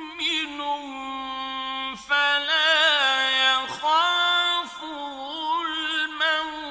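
A male Quran reciter chanting in the slow, melodic mujawwad style, holding long notes with wavering ornaments and taking short breaks between phrases.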